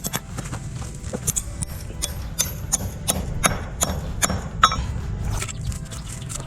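Irregular sharp knocks and clatter from manual construction work, over a steady low rumble.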